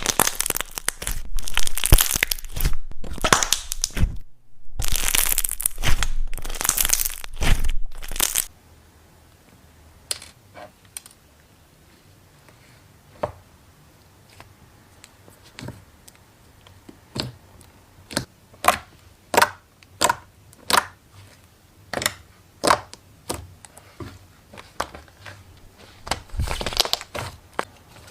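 Slime being squeezed and kneaded by hand, crackling and popping. The first eight seconds or so are a dense run of crackles. After that come separate pops and clicks, about one to two a second, and a denser burst of crackling returns near the end.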